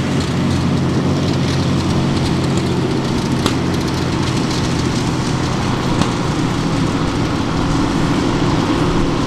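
Big engine of a pulling tractor running loud and steady at an even pitch, with no revving up or down.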